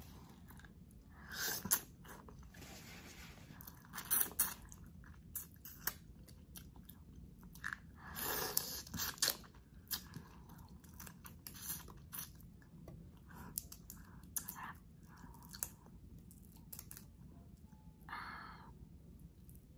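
Close-up chewing and biting of spicy garlic butter shrimp, with irregular crunches and mouth clicks; louder bites about one and a half, four and eight seconds in.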